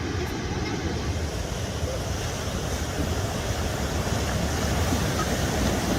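Rough sea water rushing and surging in a steady, dense roar, growing a little louder toward the end, with wind buffeting the microphone.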